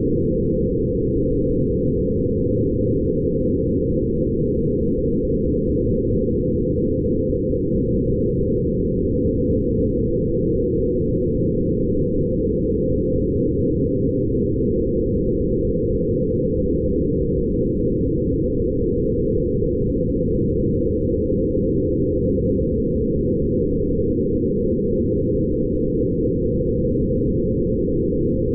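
Steady, low ambient drone, made by running photographs of light through sound editing software; it holds an even level with no high sounds at all.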